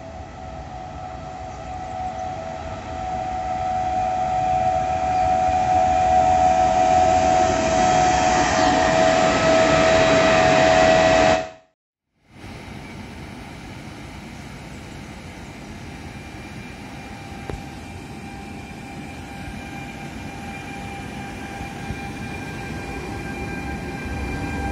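Trenitalia E464 electric locomotive and its regional coaches approaching along the platform: a rumble with a steady high-pitched squeal that grows louder for about eleven seconds, then cuts off abruptly. After the break the locomotive and coaches roll slowly past with a quieter rumble and a faint steady whine.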